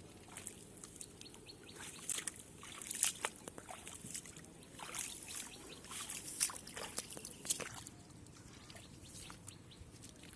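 Shallow water splashing and sloshing in irregular spurts, from a person fishing by hand with a bamboo polo trap; the splashing is busiest from about two seconds in until about eight seconds, then settles to a quiet outdoor background.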